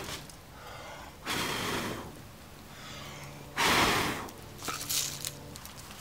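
Short breath-like rushes of air noise: one about a second in, a louder one near the middle, then a faint brief one.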